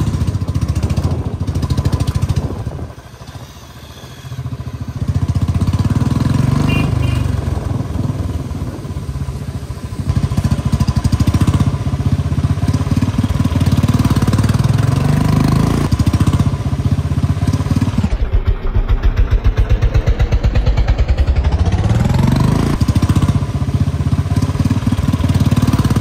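Royal Enfield Bullet 350's single-cylinder engine running on the move through slow traffic. It goes quieter for a moment about three seconds in, then pulls again; later the engine's beat slows to distinct pulses and then rises steadily in pitch as the bike accelerates.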